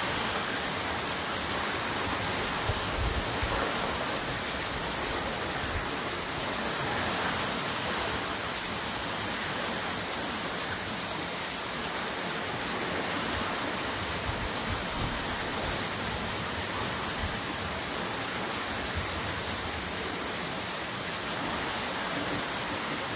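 Heavy rain falling in a steady downpour, an even hiss that holds without let-up.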